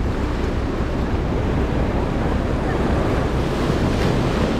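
Surf washing steadily against a rocky shore, with wind buffeting the microphone.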